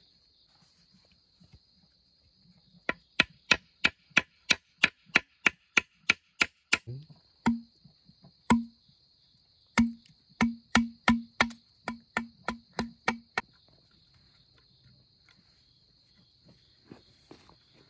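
A hand tool striking bamboo with hard, rapid blows, about three a second, in two runs of roughly a dozen strikes, the later ones with a hollow knock. A steady high drone of crickets runs underneath.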